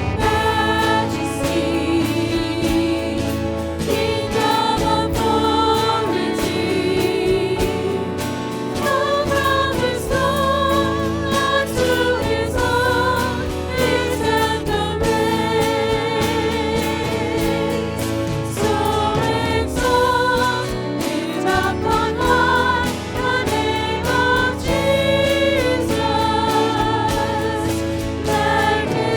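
Choir singing a Christian hymn with vibrato over instrumental accompaniment.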